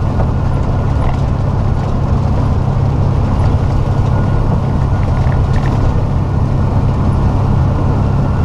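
Steady low drone of a tractor-trailer's diesel engine and its tyres on a wet highway, heard from inside the cab while cruising.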